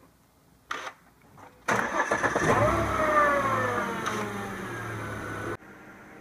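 Volvo XC90 engine starting after an oil trap (PCV) replacement: it fires about a second and a half in, flares up and settles, its pitch falling as the revs drop toward idle. The sound cuts off abruptly near the end, leaving a quieter steady hum.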